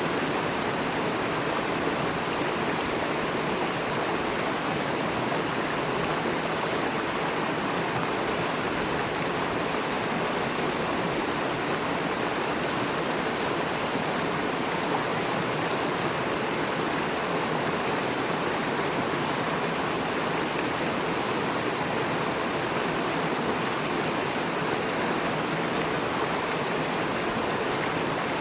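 River water rushing fast over and between rocks, a steady, unbroken rush.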